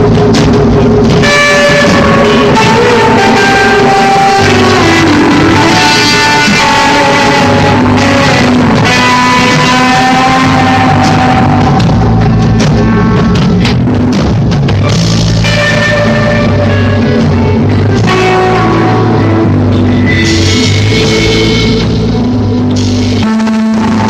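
Instrumental rock: a lead guitar plays long held, singing melody notes over drum kit and bass.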